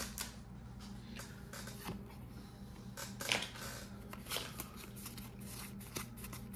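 Pokémon trading cards being flipped through by hand: soft slides and a few light clicks of card against card, over a faint steady hum.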